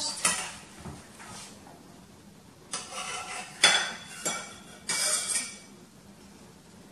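Metal serving utensils scraping and clinking against a plate and a stainless steel baking pan as a slice of pastichio is lifted out and pushed onto the plate: a series of short scrapes and clinks, the sharpest about three and a half seconds in.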